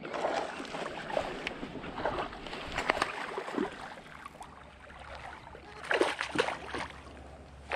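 Water lapping and splashing around a fishing kayak, with scattered short knocks and rattles. The loudest cluster comes about six seconds in.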